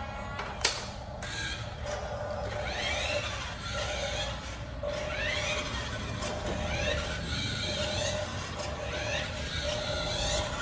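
Radio-controlled 1:20-scale flatbed truck driving on a tile floor: its small electric drive motor and gears whine, the pitch rising again and again as it speeds up, over a low rumble of the wheels. A single sharp click about a second in.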